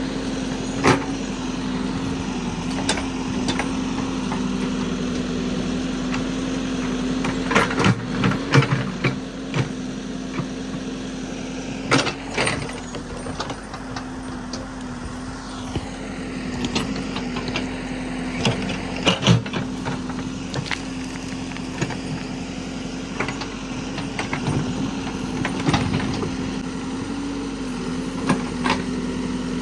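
Caterpillar backhoe loader's diesel engine running at a steady pitch while the backhoe digs, with scattered sharp knocks from the bucket and arm working in the soil.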